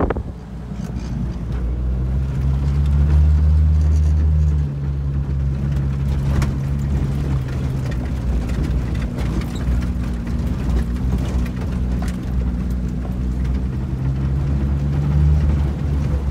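Off-road vehicle's engine running at low revs, heard from inside the cab: a steady low drone that swells about two seconds in, drops back about five seconds in, and swells again near the end.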